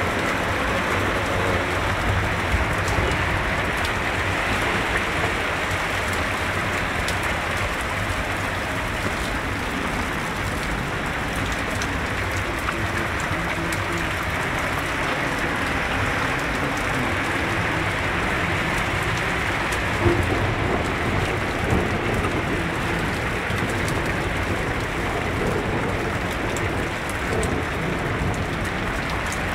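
Heavy rain falling in a steady rush, with cars splashing through deep floodwater on the road.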